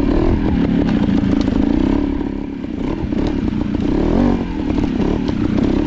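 Beta trials motorcycle engine running at low revs over rock, easing off about two and a half seconds in and picking up again about four seconds in, with light clattering.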